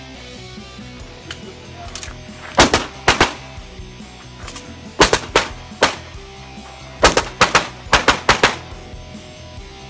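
Pistol shots fired in quick succession during a practical-shooting stage: two fast pairs about two and a half to three seconds in, three shots around five seconds, then a rapid string of about seven shots between seven and eight and a half seconds.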